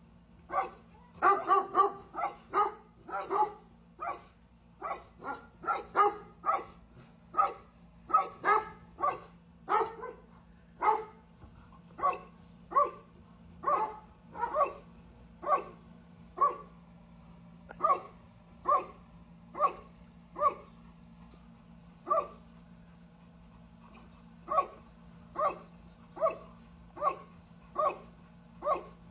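A dog barking over and over, quicker at first and then evenly paced at a little more than one bark a second, with a faint steady hum underneath.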